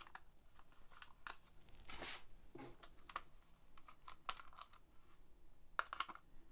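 Light clicks and taps from handling a Sony MZ-R70 MiniDisc recorder as its battery compartment is opened, with a brief rustle about two seconds in and a quick cluster of clicks near the end.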